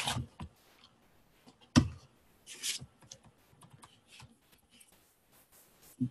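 Typing on a computer keyboard: one sharper click about two seconds in, then a run of light, scattered keystrokes.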